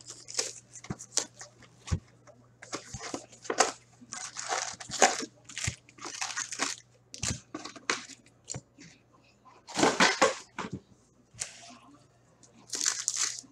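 Plastic shrink-wrap being torn and crumpled off a retail box of hockey cards, then foil card packs rustling as they are pulled from the cardboard box and stacked. The sound comes in irregular bursts of crinkling, with sharp taps in between.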